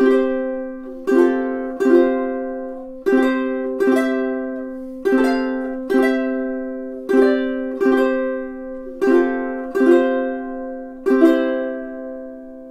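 Enya EUT-M6 all-solid mahogany tenor ukulele playing chords, struck about once a second in an unhurried rhythm, each chord ringing on; the last chord is left to ring out and fade near the end.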